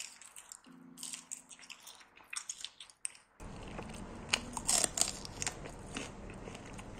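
Crisp crunching and crackling of crunchy food being bitten and chewed, in quick irregular bites. About three and a half seconds in a steady low hum comes in under it, and the crunching goes on over the hum.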